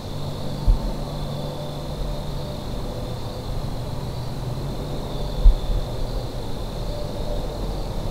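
Woodland ambience: a steady low rumble, with a hum in it that fades out about halfway through, and a thin steady high drone. Two dull low thumps, one near the start and one about two-thirds of the way in.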